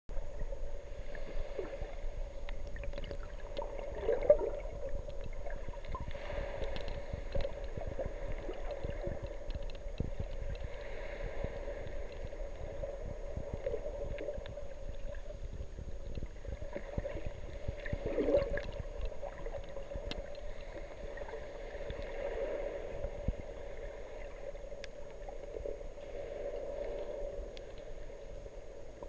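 Muffled underwater water noise and gurgling, recorded underwater, with scattered small clicks and a low rumble; the sound swells every few seconds.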